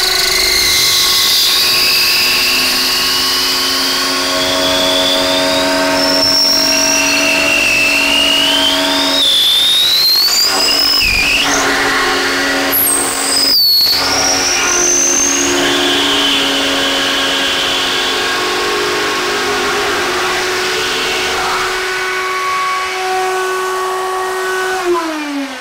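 Router-table motor running while a drill-spun wooden arrow-shaft blank is fed through a jig against the router bit, the cutting making a high whine that rises and falls in pitch. Near the end the router motor winds down after being switched off.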